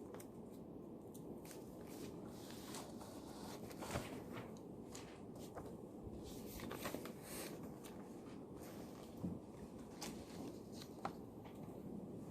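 School library ambience: a steady low room noise with scattered small clicks, taps and paper rustles from studying, such as pen strokes and handled sheets.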